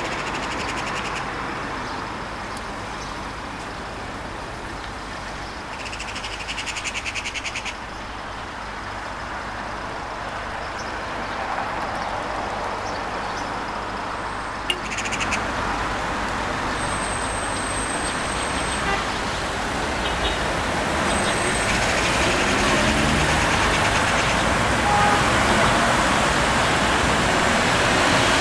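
Steady city traffic noise, a continuous hiss of passing vehicles that grows louder toward the end, with a brief fast rattle about six seconds in and a short high whistle about halfway through.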